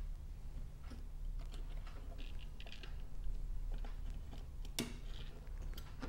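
Small, irregular clicks and taps of a precision screwdriver and fingertips working at the circuit board and plastic housing of an opened Sonoff NSPanel Pro, with one sharper click about five seconds in, over a low steady hum.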